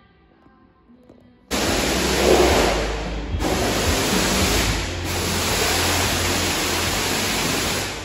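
Faint music, then a sudden loud, even hiss like static about a second and a half in. It runs with two brief dips and fades out near the end.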